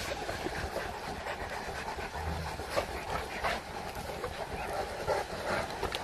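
St. Bernard dogs panting, over a steady outdoor background with scattered short clicks.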